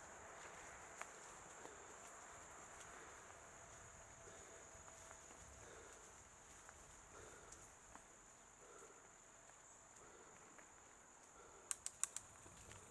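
Insects keeping up a faint, steady high-pitched chirring, with a quick cluster of sharp clicks near the end.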